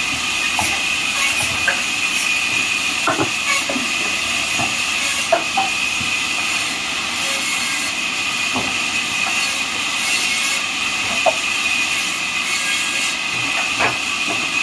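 Band sawmill blade cutting through a neem log: a steady high hiss with a constant high-pitched whine, broken by a few short knocks.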